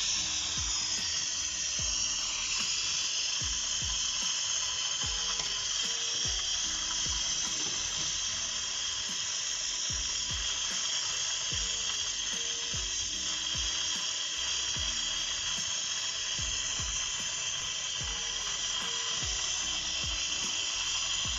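Gas brazing torch flame hissing steadily while copper refrigerator tubing is brazed, over background music with a steady beat.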